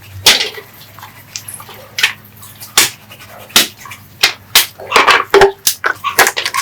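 Irregular sharp clicks and light knocks, about fifteen in all and coming faster in the second half, of parts and tools being handled during restoration work.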